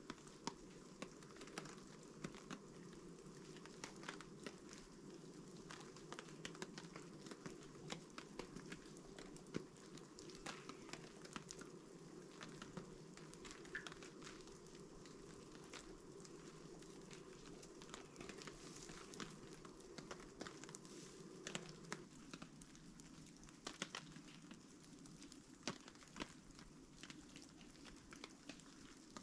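Quiet camp sounds: faint scattered clicks and crinkles of cooking gear and food packaging being handled, over a low steady rumble that drops away about three-quarters of the way through.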